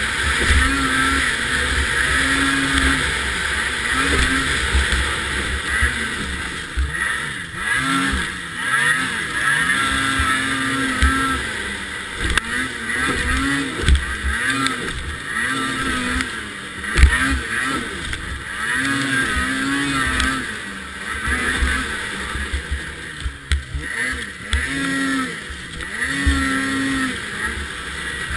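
Race snowmobile engine revving up and dropping off over and over as the sled runs a snowcross track, the pitch rising and falling every second or two, with heavy low buffeting on the sled-mounted camera.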